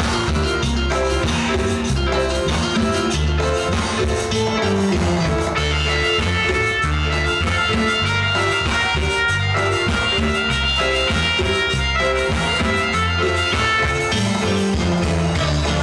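Live band playing Latin dance music over a sound system: a steady bass line and beat, with a held melody line in the middle of the passage.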